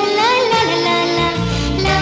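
Indian film song: a melody line with sliding, bending notes over steady instrumental accompaniment.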